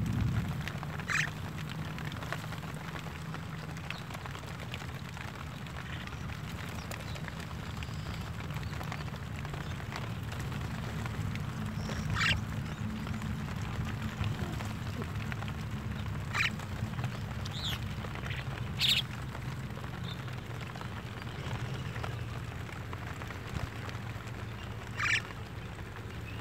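Javan mynas giving about six short, scattered calls over a low, steady background rumble.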